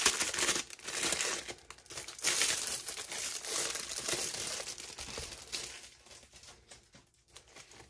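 Diamond painting kit packaging crinkling and rustling as it is handled and opened, dying down after about five seconds.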